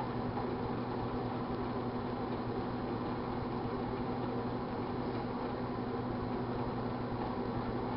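1978 GE Dual Wave microwave oven running, with a steady low hum and fan noise that do not change, while it heats a glass of Pepsi.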